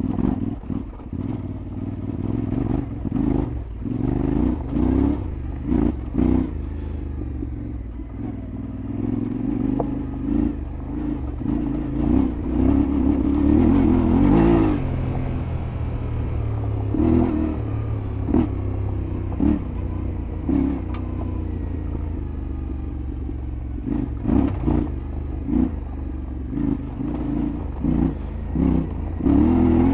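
Yamaha Ténéré 700 World Raid's 689 cc parallel-twin engine running while ridden off-road, the revs rising and falling, loudest around the middle. Frequent knocks and clatter from the bike going over rough ground.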